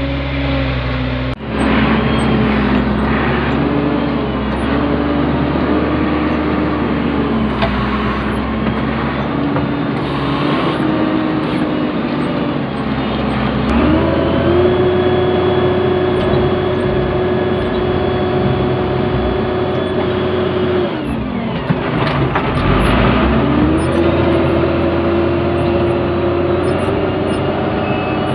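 Motor grader's diesel engine running under load while the hydraulic control levers are worked. Its speed shifts up and down, stepping up about halfway through, dipping briefly and then climbing again.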